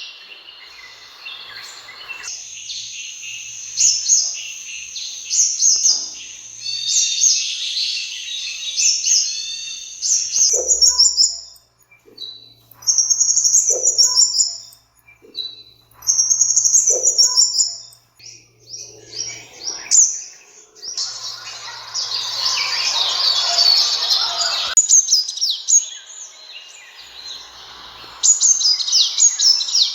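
Sunbird calling: rapid, high-pitched chirps and twittering trills, with a short phrase repeated about every second and a half in the middle. A stretch of rushing noise runs under the calls about two-thirds of the way through.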